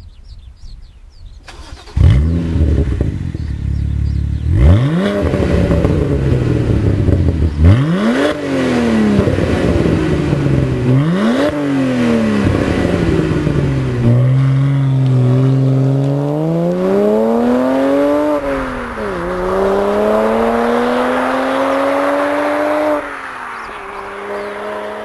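BMW 1M's twin-turbo straight-six through an Eisenmann rear muffler with quad tips. It starts up, gives three sharp revs, then pulls away under hard acceleration with one upshift, and the sound drops off as the car goes down the road.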